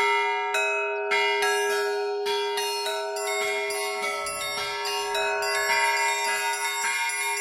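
Russian Orthodox church bells rung by hand by a single bell ringer: quick, overlapping strikes on the small high bells ring out over the steady hum of a larger bell, the strikes coming closer together in the second half.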